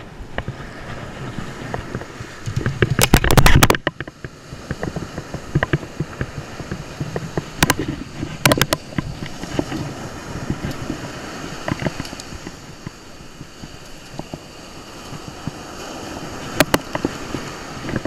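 Wind on the microphone over ocean surf, with one loud burst about three seconds in and a few sharp clicks later on.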